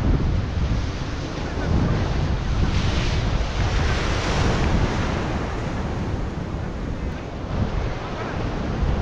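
Sea surf washing against rocks, with wind buffeting the microphone in a steady low rumble. A wave breaks and swells into a louder hiss about three to five seconds in.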